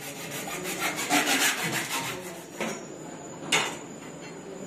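Hacksaw cutting through a PVC pipe in quick back-and-forth strokes for about two and a half seconds. Then come two sharp knocks, the second louder, about three and a half seconds in.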